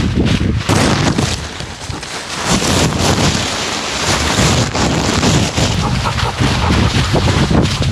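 Wind and rubbing noise on the microphone of a camera strapped to a moving dog's back: a loud, steady rush with a low rumble, the dog's fur brushing against the camera.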